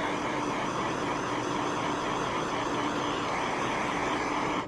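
Small handheld gas torch burning with a steady hiss of flame, heating heat-shrink tubing wire labels to shrink them; the flame cuts off abruptly at the end.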